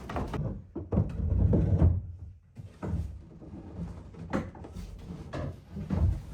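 Irregular heavy thuds and knocks from a fiberglass sailboat deck being worked loose and lifted against its hull, loudest about one to two seconds in.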